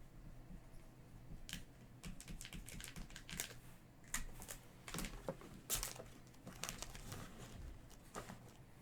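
Trading card packs and cards being handled on a table: faint foil wrappers crinkling and cards clicking, in a run of short, sharp ticks.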